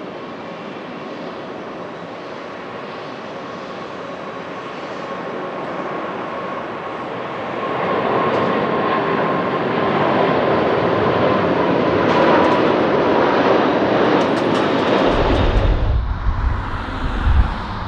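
Airbus A380-800's four engines at takeoff thrust as it lifts off and climbs out: a loud, steady jet noise with a whine running through it, growing louder over the first eight seconds or so. About two seconds before the end the jet noise drops away suddenly, and an uneven low rumble with wind buffeting the microphone takes over.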